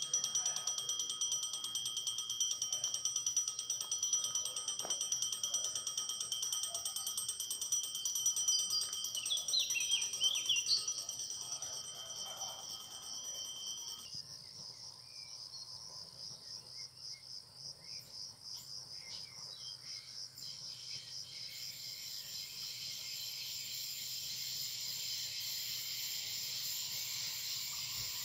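Crickets chirping in a steady, high, fast-pulsing trill. A faint low rumble builds over the last few seconds as a train approaches.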